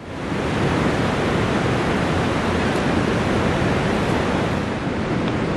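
Loud, steady rushing noise with no pitch or rhythm, fading in at the very start.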